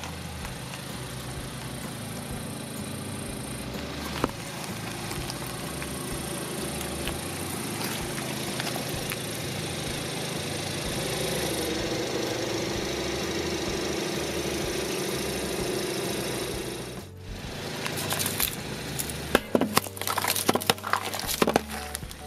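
A car engine runs steadily at idle for most of the time. After a short break about seventeen seconds in, a quick series of sharp cracks and crunches follows as the tyre rolls over and breaks the objects beneath it.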